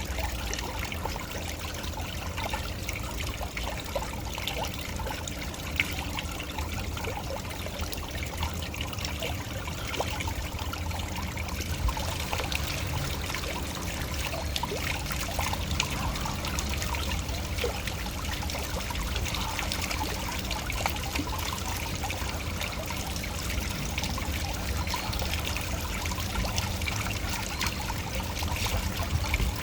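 Waterfall: water falling and splashing steadily and evenly, with many small splashes.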